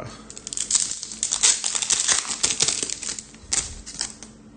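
A stack of trading cards being handled, with a rapid run of dry clicks and crinkling that thins out near the end.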